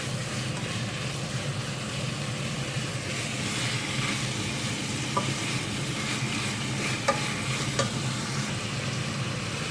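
Boneless chicken pieces sizzling steadily as they sauté in a pan, being seared until the raw pink is gone. A few light clicks of a utensil against the pan come in the second half.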